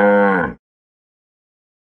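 The end of a cow's moo, one long pitched call that cuts off about half a second in.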